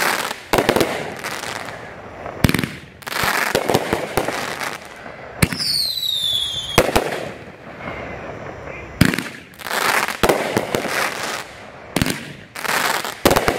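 A 24-shot 500-gram consumer fireworks cake firing: a string of sharp launch and burst reports a second or a few seconds apart, most followed by crackling from the bursting stars. About six seconds in, a brief falling whistle-like tone sounds.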